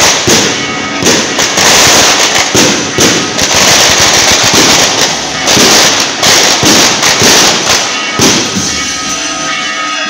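A long string of firecrackers going off in rapid crackling bursts, easing near the end as band music with steady notes comes through underneath.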